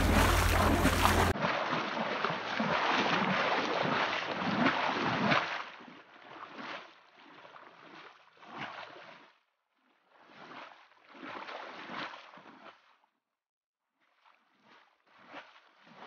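Rushing noise of floodwater flowing across a road, with wind buffeting the microphone as a heavy rumble for the first second or so. About five seconds in it thins to fainter swells of rushing noise broken by short silent gaps.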